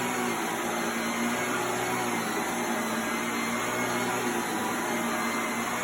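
Household vacuum cleaner running steadily: a constant motor hum over an even noise of airflow.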